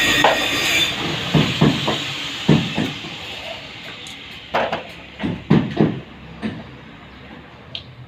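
A hiss for about the first second, then a scattering of irregular knocks and taps, about nine in all.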